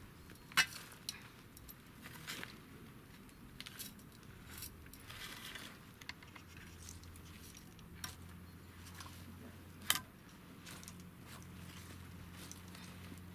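Garden trowel scraping and scooping soil, with soil tipped into a planter made from a cut-down metal gas bottle and pressed in by gloved hands: scattered scrapes and sharp clicks, the loudest about half a second in and again near ten seconds. A steady low hum comes in about halfway.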